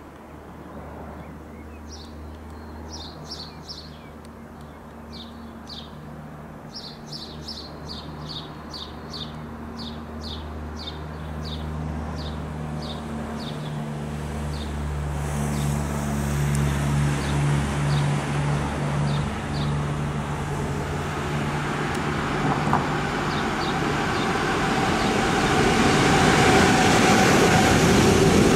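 Electric locomotive hauling a freight train of covered car-carrier wagons, approaching and growing steadily louder, then the rumble of the wagons' wheels on the rails as they pass close by. A bird chirps repeatedly during the first half.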